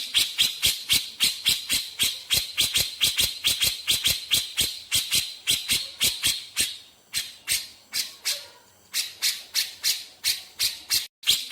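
Grey-cheeked bulbul (cucak jenggot) calling in a fast chattering series of sharp, rattling clicks, about five or six a second. The series thins and quietens about two-thirds of the way in, then picks up again.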